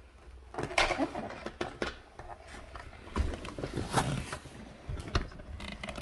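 Plastic parts of a toy Dyson vacuum cleaner being handled and fitted together: a run of irregular clicks, rattles and knocks.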